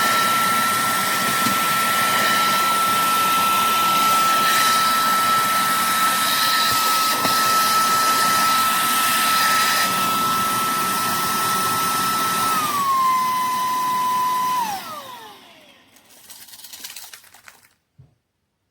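EBOSSOM cordless handheld vacuum running with a steady high whine. About three-quarters of the way through the whine steps down a little in pitch. The vacuum is then switched off and the motor winds down with a falling whine.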